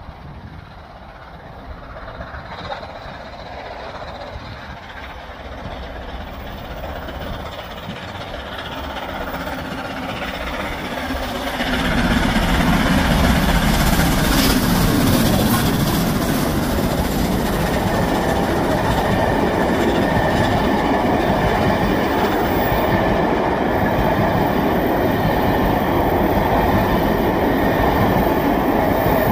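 LNER A4 Pacific three-cylinder steam locomotive 60007 Sir Nigel Gresley working hard as it approaches and runs through. It grows steadily louder, then jumps in loudness about twelve seconds in as the engine draws level. The rake of coaches then rolls past, loud and steady.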